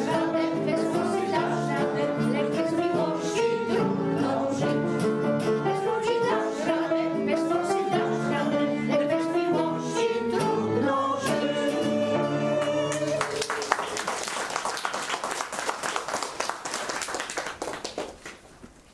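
A vocal ensemble singing the last phrases of a song with instrumental accompaniment; about 13 seconds in the music ends and the audience applauds for several seconds before the applause dies away.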